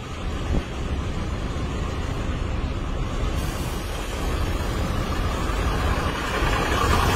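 Heavy trucks passing close by on the road: a steady low engine and tyre rumble mixed with road noise, growing louder near the end.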